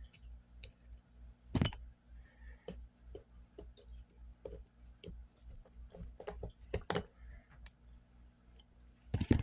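Scattered small metal clicks and taps as the parts of a Raven Arms P25 pistol are handled and fitted together during reassembly, with sharper clicks about one and a half seconds in, near seven seconds, and near the end.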